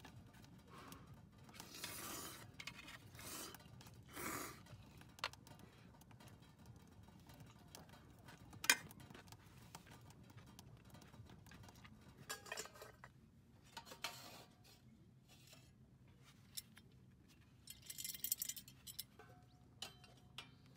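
Faint, scattered clinks and scrapes of utensils against aluminium mess tins, with one sharp clink about halfway through and a few short soft swishes early on.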